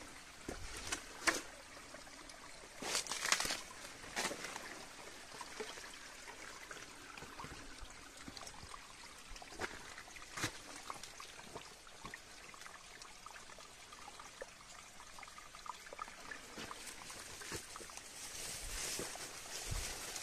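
Small stream of water trickling steadily, with a few brief sharp sounds over it, the loudest about three seconds in.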